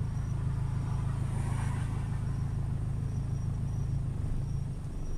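Steady low rumble of a car idling while stopped in traffic, heard from inside the cabin. Another vehicle's road noise swells briefly about a second and a half in.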